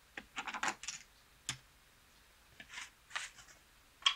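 Playing cards being swept up off a felt blackjack table and casino chips set down with a few sharp clicks, as the dealer clears a hand and pays the winning bet. The sounds are short and scattered: a cluster of rustles and clicks early on, a single click, and soft swishes.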